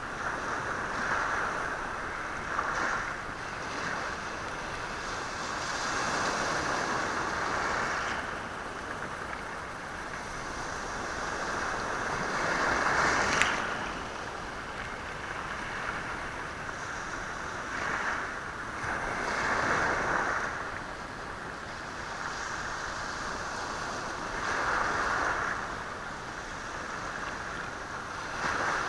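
Sea waves surging onto a rocky shore and washing back over the stones, swelling and easing every few seconds. The loudest surge comes about 13 seconds in, with a sharp click of stone on stone.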